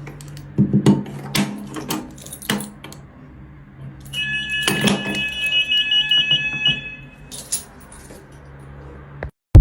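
A fire alarm's electronic sounder giving a high, rapidly pulsing tone for about two and a half seconds, starting about four seconds in, among scattered knocks and clicks over a low steady hum.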